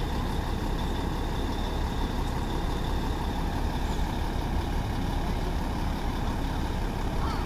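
Heavy truck's diesel engine idling with a steady low rumble.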